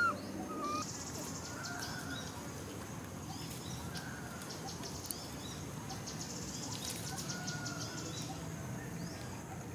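Outdoor woodland ambience: scattered bird chirps over a high-pitched buzzing that comes and goes in bursts of a second or two.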